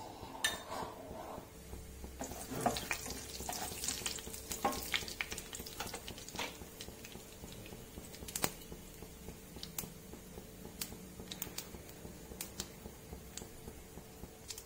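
Tempering seeds and dals, mustard seeds among them, sizzling in hot coconut oil in a nonstick pan, with sharp pops and crackles as the mustard seeds splutter. The sizzle is densest in the first half, then thins to scattered pops over a faint steady hum.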